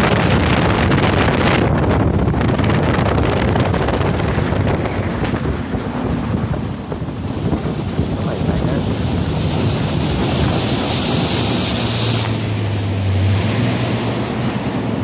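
Ranger bass boat running across the lake: wind buffets the microphone and water rushes along the hull over the hum of its outboard motor. The engine hum comes through more clearly near the end.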